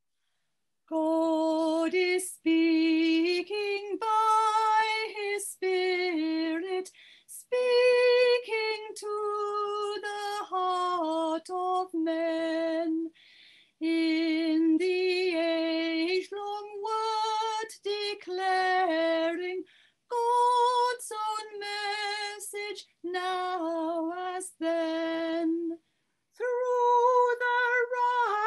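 A woman singing a hymn verse solo and unaccompanied, phrase by phrase, with short breaks between lines.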